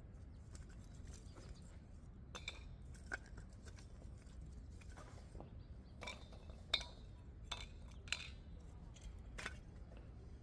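Camp cookware and utensils clinking and knocking in a string of separate light clinks, the loudest about seven seconds in.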